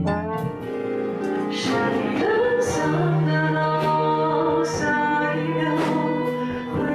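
Live pop song: a woman singing over acoustic guitar accompaniment, with a held low note under the melody.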